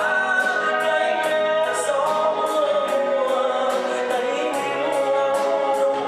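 Live band playing a slow Vietnamese bolero song, with a male singer holding long, slowly bending notes over a steady cymbal beat of about two ticks a second.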